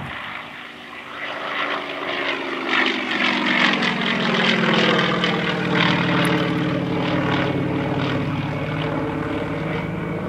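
Aerobatic propeller plane's engine and propeller running at high power. The sound grows louder, its pitch falls between about two and four seconds in, and then it holds steady.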